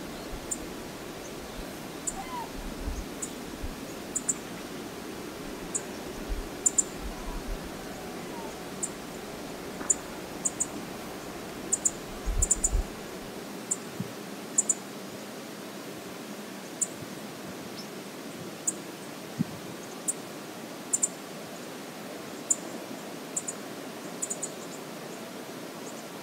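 Steady rush of flowing river water, with short sharp high ticks at irregular intervals, roughly one or two a second, and low rumbles in the first half.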